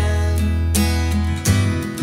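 Acoustic guitar strumming over low upright bass notes, with no singing. The bass changes note about one and a half seconds in.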